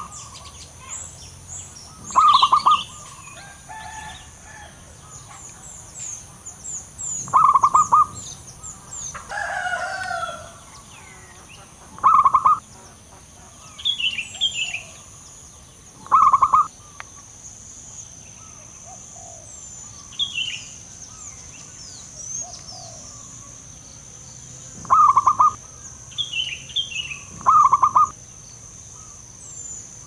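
Male zebra dove (perkutut) singing: six short, quickly pulsed cooing phrases a few seconds apart. Smaller birds chirp faintly at a higher pitch between them, over a steady high insect drone.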